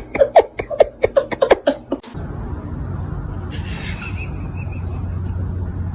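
A person laughing in quick short bursts for about two seconds, then cutting off abruptly into a steady low hum.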